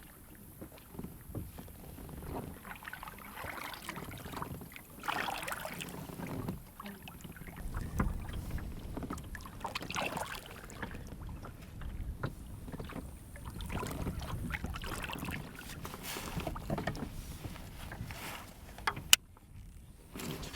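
Kayak paddle strokes in the water, a swish about every two seconds, with one sharp click near the end.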